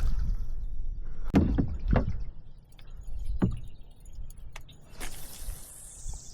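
Several dull knocks and light clicks from handling gear and a just-landed pike, then a sliding scrape that falls in pitch near the end.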